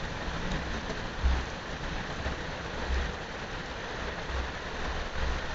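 Steady rain falling in a thunderstorm, an even hiss, with several brief low thumps at irregular spacing.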